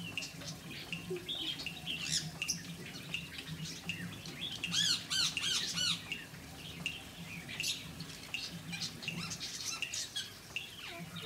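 Pet birds chirping and squawking in short, high calls, with a quick run of arched squawks about five seconds in.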